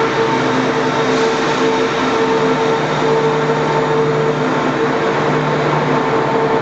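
Diesel multiple unit's underfloor engines running with a steady, even drone.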